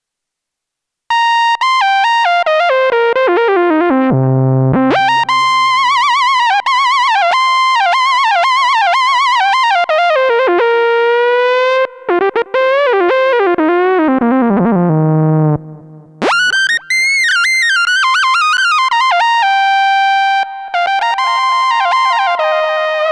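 ASM Hydrasynth digital wave-morphing synthesizer playing a factory preset, recorded directly from the instrument. A single-voice melodic line comes in about a second in, gliding between notes with vibrato and dipping to low notes twice. After a brief break a brighter, more cutting tone takes over near the end.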